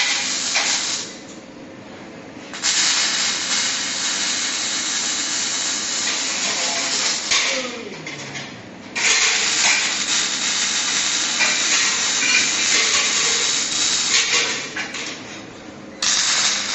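Robotic arc welding: the welding arc burns with a steady hiss in stretches of several seconds, each starting abruptly, with pauses of about a second and a half between welds.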